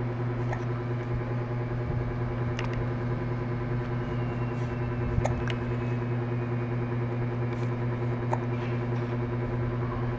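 Baby hiccuping, a few short sharp hics spaced two to three seconds apart, over a steady low machine hum.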